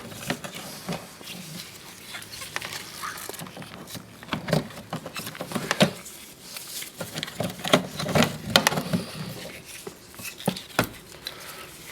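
Scattered light clicks and taps of hands and fingers working at the small clip that holds the door latch's linkage rod.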